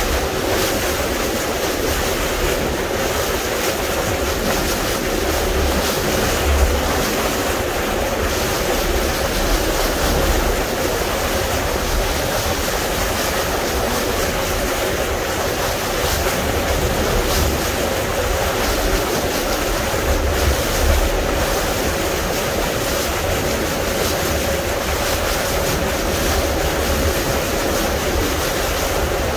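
Fishing boat's engine running steadily underway, a constant drone with water rushing past the hull. Wind buffets the microphone now and then.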